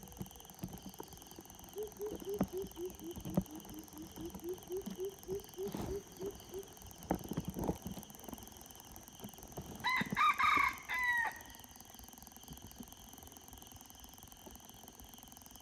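Red junglefowl cock crowing once about ten seconds in, a short crow that ends on a falling note. Before it, a run of low hoots, about four a second, lasting some five seconds.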